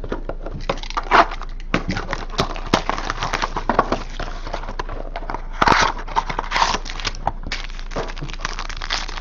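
Trading cards and plastic packaging being handled: irregular crinkling, crackles and small clicks.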